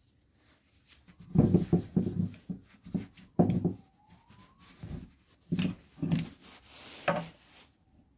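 Workshop handling noise from an old straight grinder's metal motor housing and a screwdriver on a wooden workbench: about a dozen irregular knocks and clunks, with a faint rising squeak near the middle.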